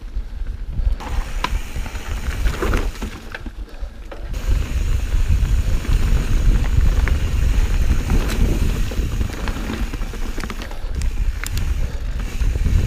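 Mountain bike (a Santa Cruz Hightower on 27.5+ tyres) riding down dirt singletrack: a low rumble of tyres and wind at the handlebar camera, with scattered sharp clicks and rattles from the bike over roots and rocks. It gets louder about four seconds in.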